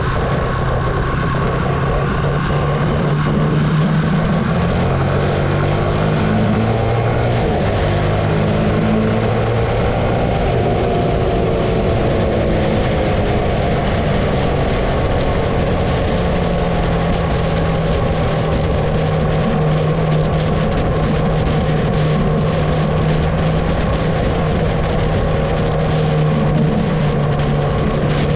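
Archive AM60 125cc single-cylinder motorcycle engine running under way, heard from on the bike, its pitch stepping up and down a few times in the first ten seconds and then holding steady, over a constant rush of wind and road noise.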